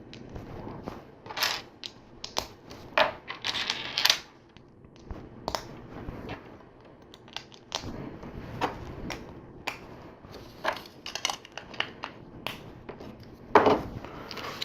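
Plastic LEGO bricks clicking and clattering as they are handled, stacked and pressed together. Irregular sharp clicks and light rustling, with a louder clack near the end.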